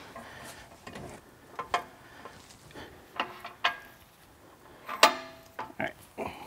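Several sharp metal clinks and knocks from hand tools and a shock-and-spring assembly being handled, spread out irregularly; the loudest, about five seconds in, rings briefly.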